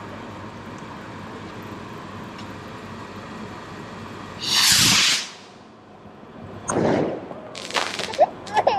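Small firework rockets launching: a loud rushing whoosh lasting under a second about halfway through, then two shorter whooshes and a few sharp cracks near the end, over a steady background hiss.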